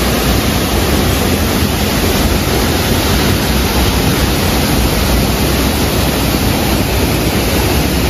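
Small waterfalls pouring over boulders into a rocky stream: a loud, steady rush of water.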